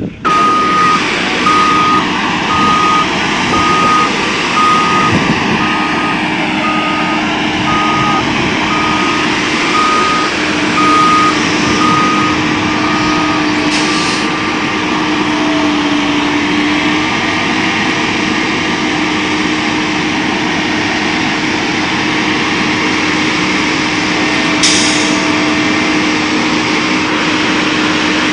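Diesel engine of a Gradall truck-mounted excavator running close by, its backup alarm beeping steadily about once a second for the first thirteen seconds or so, then stopping. Two short hisses of air, about halfway through and near the end.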